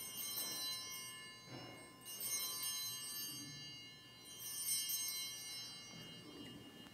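Altar bells rung three times, about two seconds apart, each ring a bright cluster of tones that fades slowly. They mark the elevation of the consecrated host.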